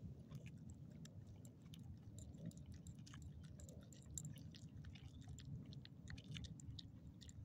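Small dog eating chewed-up hot dog from a hand: faint, quick wet clicks of chewing and licking, over a low steady rumble.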